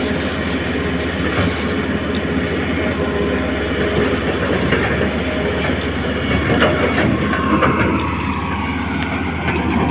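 Huina radio-controlled excavator working, its small electric motors and gears whirring and clattering steadily, with a motor tone that falls in pitch near the end.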